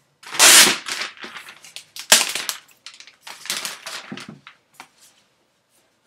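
Plastic protective wrap being pulled off a new MacBook Pro and crumpled: several loud crinkling, crackling rustles, the loudest about half a second in, fading out after about four seconds.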